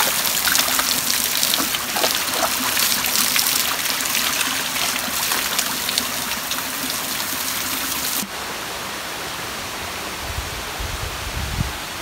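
Small waterfall pouring onto rocks and a dog being rinsed under it, a steady rush of splashing water. About eight seconds in the sound drops suddenly to a quieter, even rush of running water.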